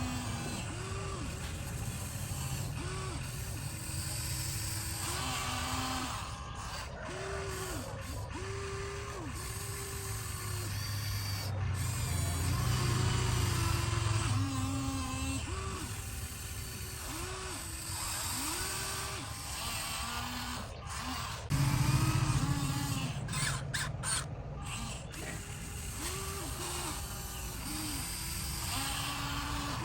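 Motors of a radio-controlled excavator whining in short bursts, starting and stopping again and again at a few different pitches as it works its arm and bucket, over a steady low rumble.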